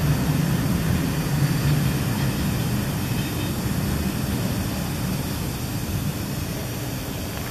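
A train rumbling along the rails: a steady low rumble that slowly fades.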